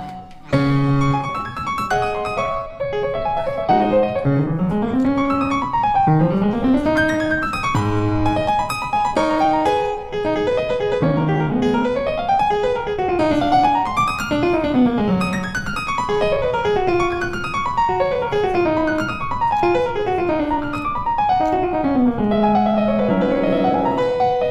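Background piano music: quick runs of notes climbing and falling, over and over.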